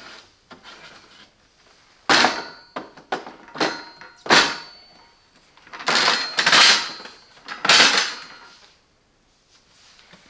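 A series of separate knocks and short clatters from handling the plastic parts of an espresso machine, such as its water tank and lid being set back in place, with a quiet stretch at first and another near the end.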